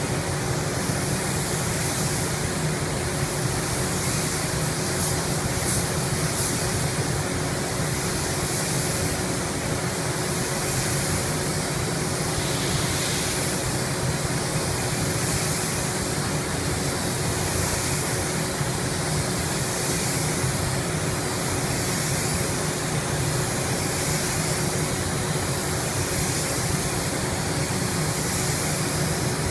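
Air-powered paint spray gun hissing steadily as colour is applied, the hiss swelling and fading gently every couple of seconds, over a steady low hum.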